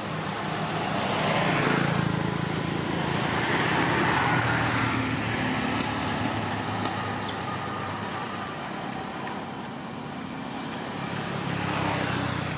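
Motor vehicle engines running, with the sound swelling louder about two seconds in, again around four seconds in, and near the end, as of vehicles passing close by.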